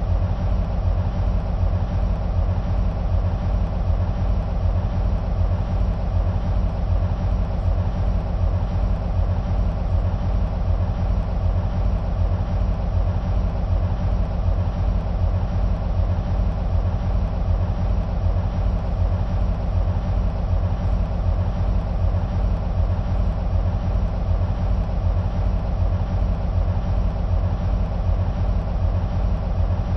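EMD SW1500 switcher locomotives' two-stroke V12 diesel engines idling with a steady, deep throb.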